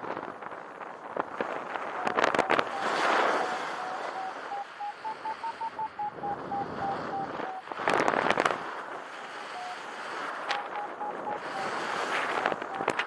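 Paragliding variometer beeping in quick repeated tones, about four a second. The pitch rises and then falls back in the middle, then the beeps pause and resume near the end: the sound of the glider climbing in lift. Wind buffets the microphone, with loud gusts about two and eight seconds in.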